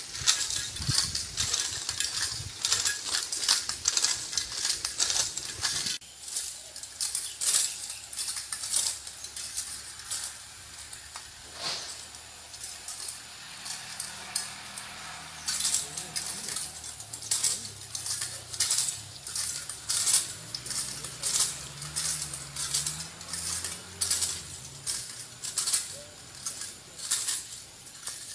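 Coconut-tree climbing machine clicking and clanking on the palm trunk as it is worked up the tree: a continuous run of sharp metallic clicks, about two a second.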